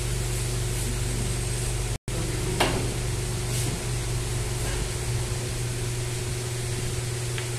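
Steady hum of wall-mounted electric fans running, with a low electrical hum under it. The sound cuts out for an instant about two seconds in, and a single sharp knock follows about half a second later.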